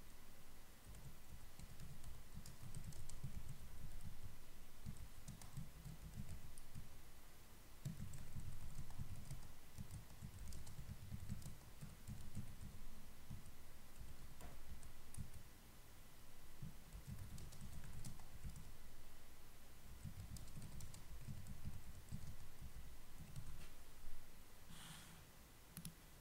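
Typing on a computer keyboard in irregular bursts of keystrokes, with a sharper click near the end.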